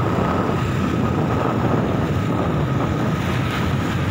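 Steady wind rumble on the microphone of a moving vehicle, mixed with motorcycle engine and road noise, with a faint steady whine over it.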